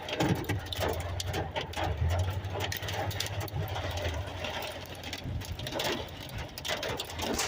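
Hailstones pelting down, a dense irregular rattle of hard hits on a surface. A steady low rumble underlies the first four seconds and then stops abruptly.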